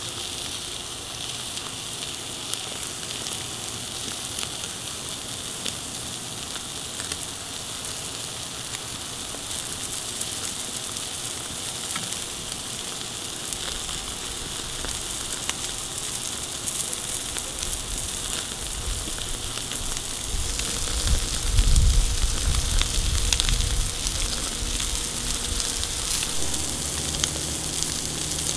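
Ribeye steaks sizzling steadily on a cast iron grill grate over hot charcoal, with scattered small pops. A low rumble builds in the second half and is loudest about two-thirds of the way through.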